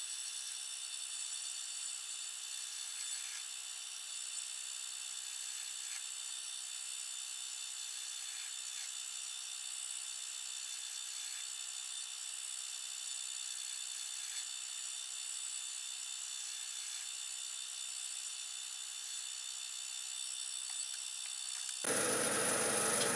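Myford Super 7 lathe running while a number 51 drill bit is fed into the spindle blank: a steady, thin whine and hiss of the machine and cutting, with no low end. Near the end it gives way abruptly to a louder, fuller background.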